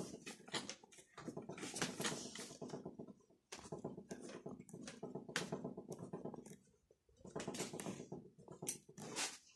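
Irregular clicks, taps and rustles of close handling, with light metallic clinks such as bridle buckles and rings knocking, broken by two brief quiet spells.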